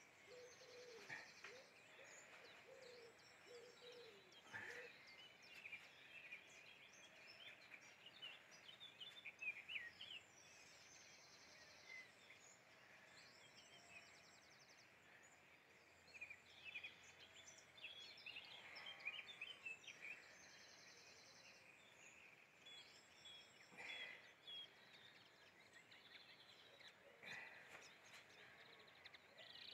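Faint birdsong: many short chirps and trills from several small birds, with a lower wavering call repeating in the first few seconds.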